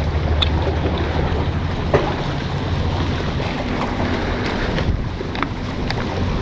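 Wind rumbling on the microphone, with the sea washing against breakwater rocks and a few light clicks.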